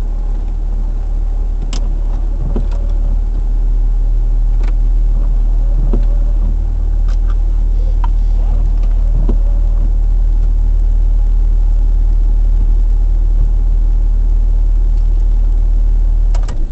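Car engine idling steadily, heard from inside the car, with a few faint clicks; the engine cuts off right at the end.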